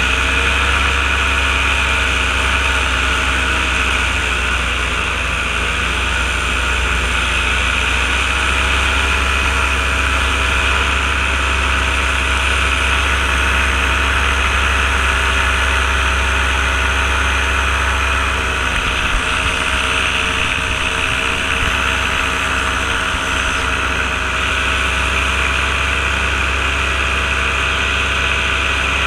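Ultralight aircraft engine running steadily in flight, its pitch wavering only slightly, with wind rushing past the open airframe.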